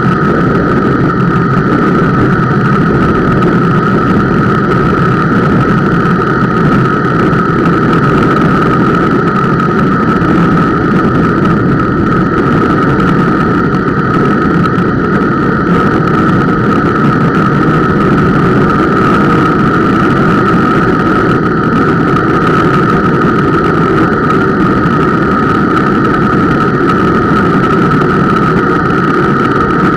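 Bicycle disc brake dragging under partial braking on a steep descent: a steady high squeal over the rushing of semi-metallic Alligator pads on the rotor, amplified by vibration carried into the camera mount. The uploader puts the squeal down to the Centerlock rotor mounting, typical of that system.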